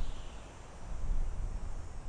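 Soft wind blowing through a forest, gusting unevenly, with a low rumble that swells about a second in over a steady hiss of moving leaves.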